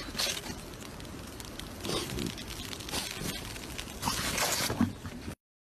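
Footsteps crunching and squeaking through packed snow, in several crunchy bursts, with the loudest stretch about four seconds in; the sound cuts off abruptly near the end.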